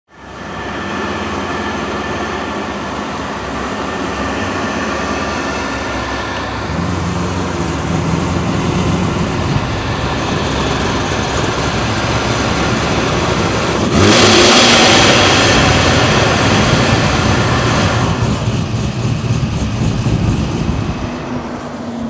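Corvette V8 engine running hard and accelerating. It swells to its loudest about fourteen seconds in and holds for some four seconds before easing off.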